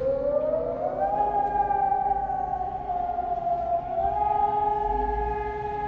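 Civil defense warning siren starting up during a nationwide test alarm: its tone rises steeply over about a second, then holds high and steady, sagging slightly in pitch around the middle before climbing back.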